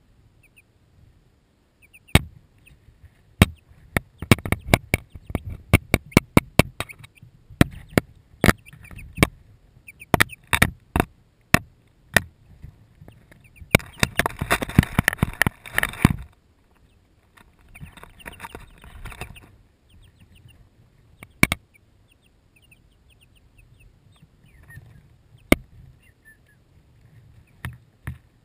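Young light Sussex chicks pecking and scratching at the camera and the wood shavings close to it: a run of sharp taps and knocks, thickest in a rapid flurry about halfway through, then a few single taps, with some faint peeps.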